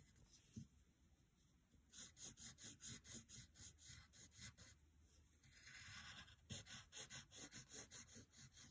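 Faint pencil scratching on paper: a yellow wooden pencil drawing short, quick strokes at about four a second, starting about two seconds in. The strokes come in two runs with a longer single stroke between them.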